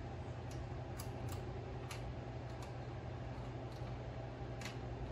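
Small, irregular metallic clicks of washers and a nut being fitted by hand onto a regulator mounting bolt, over a steady low hum.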